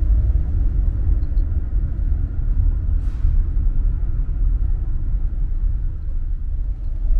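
Steady low rumble of a Suzuki Lapin kei car heard from inside its cabin while driving, with a brief faint hiss about three seconds in.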